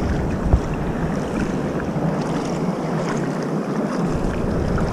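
Steady wind buffeting the microphone over water lapping at the river's edge, with the low rumble of the wind easing for about a second past the middle.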